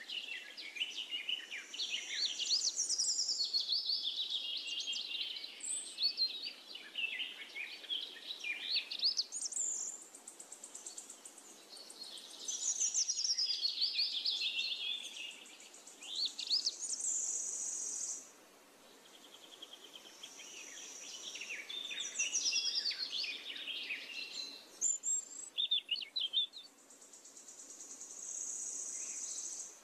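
Birds chirping and singing in a dense chorus of quick rising and falling notes, with a steady high-pitched insect buzz that comes and goes several times.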